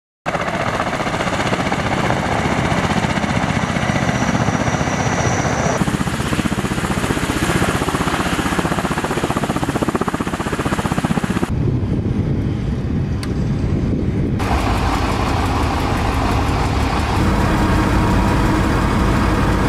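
Kamov Ka-52 Alligator attack helicopter running, its coaxial rotors and turbine engines making a steady loud noise. The sound changes suddenly a few times, about 6, 11 and 14 seconds in.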